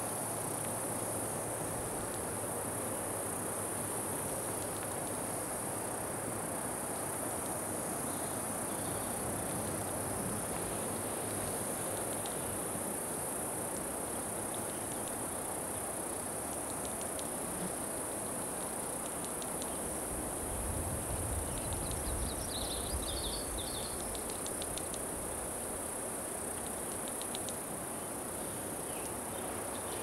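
Cicadas singing: a steady, high-pitched buzz from Okanagana bella, with scattered dry wing-clicks of Platypedia putnami, in a cluster around ten seconds in and again about twenty-two seconds in. A brief low rumble comes about twenty seconds in.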